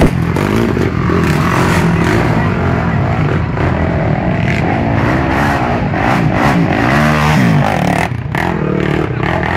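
Racing quad (ATV) engines revving hard as the quads ride through a muddy track. The pitch sweeps up and down with the throttle a few times.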